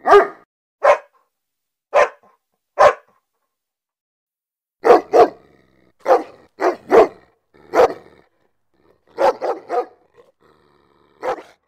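A dog barking in short, sharp barks, some single and some in quick runs of two or three, with silent pauses between them, the longest about two seconds.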